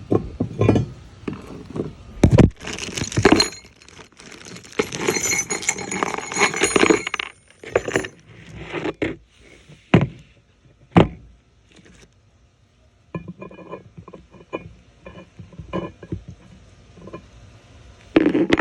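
Metal parts of a wall-mount toilet carrier being handled, clinking and clattering against each other. The clatter is densest in the first half, then gives way to a few single sharp knocks and lighter ticking.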